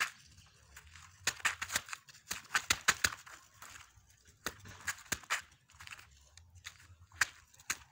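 Gritty crunching and scraping steps on sandy, hard-packed ground, in irregular clusters of quick sharp scratches with short pauses between.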